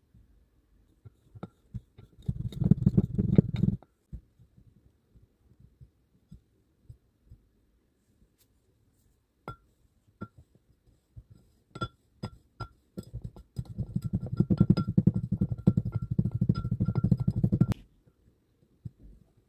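Kinetic sand being crunched: two spells of dense crackling, a short one about two seconds in and a longer one from about thirteen to eighteen seconds in, with scattered single crunches between.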